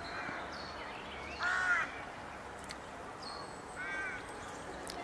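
A crow cawing twice, about two seconds apart, each call short and harsh.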